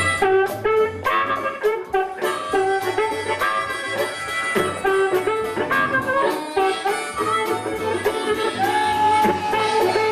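Background band music with a steady beat; a lead instrument holds one long note near the end.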